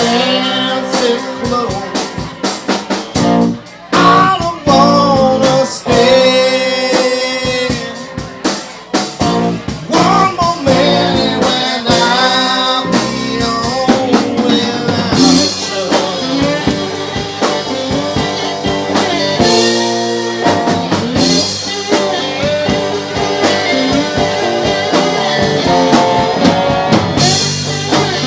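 A band playing a blues-rock song, with guitar, a drum kit and singing.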